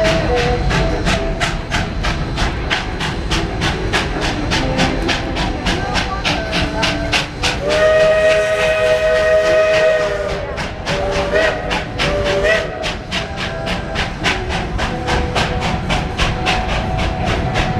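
Georgetown Loop steam locomotive No. 40, a narrow-gauge Baldwin 2-6-2, working under steam with a steady beat of exhaust chuffs, about four a second. About eight seconds in, its steam whistle gives one long blast of about two and a half seconds.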